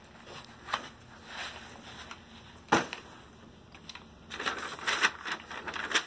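Handling noise as a backpack is taken off and set down, with a single sharp thump about two and a half seconds in as it drops onto the carpet. Near the end comes a stretch of paper rustling as a large sheet of rolled paper is handled.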